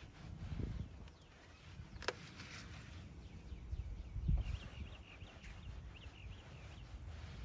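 Low steady rumble with a sharp click about two seconds in and a thump past the middle, followed by a bird chirping a quick series of short calls.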